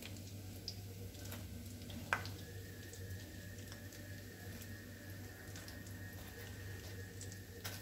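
Cauliflower and tuna balls frying in shallow oil in a pan: a faint sizzle with scattered small crackles. A sharp click about two seconds in as the tongs knock against the pan while lifting the balls out.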